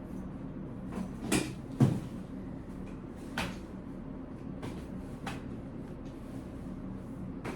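Knocks and clicks from handling a baby stroller's frame, a handful of them and the loudest a little under two seconds in, over a steady low hum.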